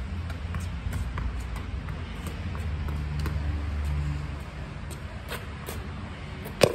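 Tennis ball being volleyed against a stone wall with a racket: faint knocks of the ball off the strings and the wall, over a low rumble that fades about four seconds in. Near the end comes one loud, sharp crack of the ball on the racket strings close by.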